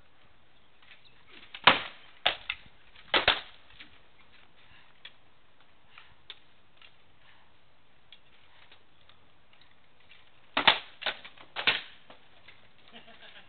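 Swords striking shields and armour in armoured sword-and-shield sparring: two quick flurries of sharp knocks, each of about five blows, about eight seconds apart.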